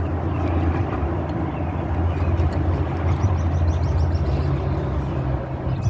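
A steady low engine rumble from a motor vehicle running close by, dropping away near the end.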